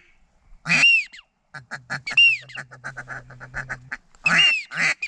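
Duck calling: loud whistled notes that arch up and fall, a rapid chattering run of short notes lasting about two seconds, then more whistled notes near the end.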